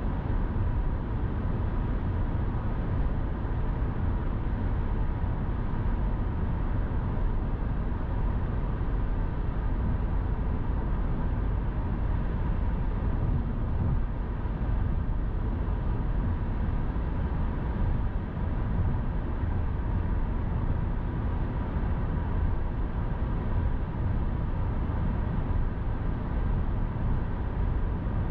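Car travelling at highway speed: steady tyre and wind noise with a deep rumble and a faint steady whine.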